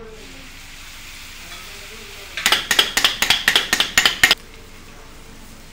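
Steel tumblers beating and chopping kothu parotta on a hot iron griddle: a fast run of ringing metallic clangs, about seven a second, for about two seconds in the middle, over a steady sizzle of frying.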